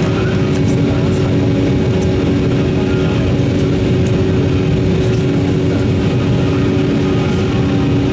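Steady cabin noise of an Embraer 190 airliner in flight: a constant rush of jet engines and airflow with a low, even hum.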